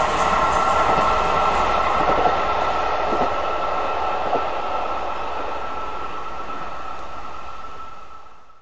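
KiYa E195 series rail-transport train running away into the distance: a steady rail rumble with a high steady whine over it, slowly growing quieter before the sound fades out at the very end.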